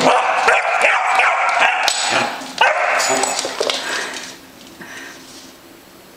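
Basset hound puppy barking repeatedly, stopping about four seconds in.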